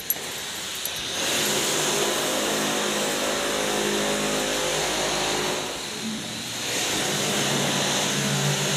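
Construction work machinery running with a steady mechanical drone. It comes in two long stretches with a brief dip about six seconds in.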